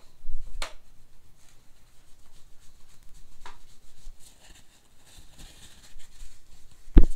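A wipe rubbing over the painted arm of a Necchi Supernova sewing machine as polish is worked in, a faint dry swishing. Knocks from handling the machine break in, about half a second in and again midway, with a sharp thump, the loudest sound, just before the end.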